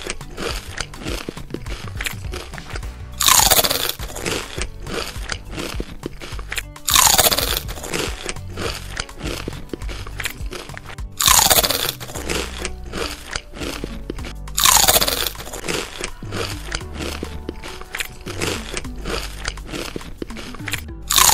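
Crispy packaged snacks being crunched and chewed close to the microphone, over background music. About every four seconds a loud sound effect with a falling tone cuts in.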